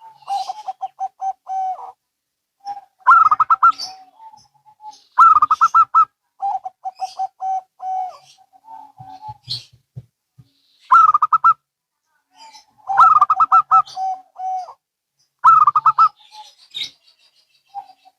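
Zebra doves (perkutut) cooing, answering one another. There are about seven phrases, each a quick run of rolling, evenly spaced notes, with short gaps between them.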